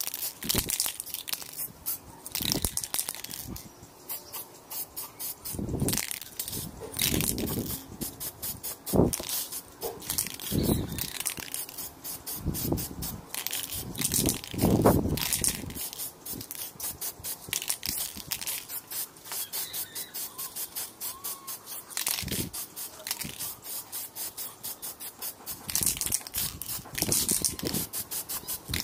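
Aerosol spray can of clear coat hissing in many short bursts in quick succession, with a few duller thumps among them.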